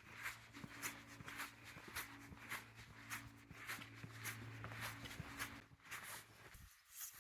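Footsteps walking at an even pace, about two steps a second, faint.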